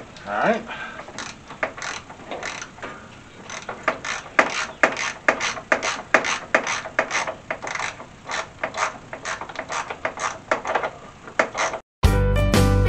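Socket ratchet clicking in short runs, a few clicks a second, as the master cylinder's half-inch mounting bolts are backed off the firewall. Near the end it cuts suddenly to loud guitar music.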